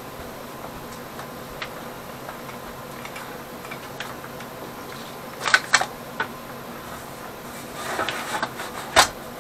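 Workshop handling noises: a couple of sharp clicks about five and a half seconds in, scraping and rustling around eight seconds as the sheet-metal tractor dash panel is gripped and shifted, and a sharp knock about nine seconds in. A steady faint hum runs underneath.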